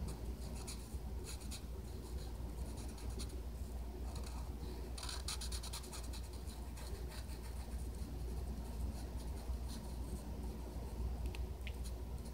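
Felt-tip marker drawing on paper in clusters of short strokes, over a steady low hum.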